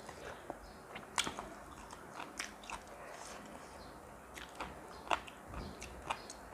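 A person chewing and biting crunchy food close to the microphone, with a handful of sharp crunches and mouth clicks at irregular intervals.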